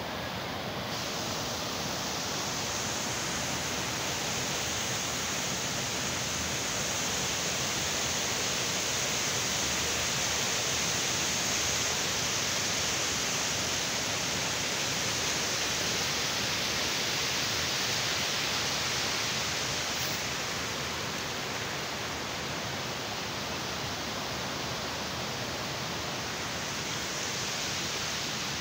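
Steady rush of a fast mountain stream tumbling over rocks, swelling slightly in the middle.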